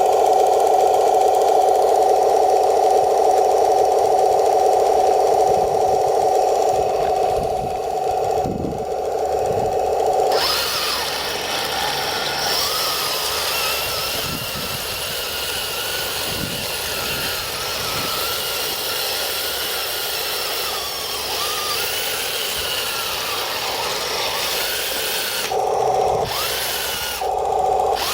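Electric drive motors and gearboxes of an RC M26 tank with metal tracks, a steady buzzing whine. About ten seconds in it changes to a higher, wavering whine, and the lower buzz comes back in short bursts near the end.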